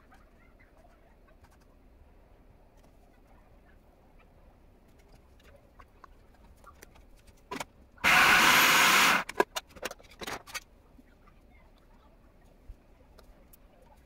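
Food processor running for about a second, then pulsed in a few short bursts, chopping green spinach sponge cake into crumbs. In the first half, only faint small clicks and scrapes.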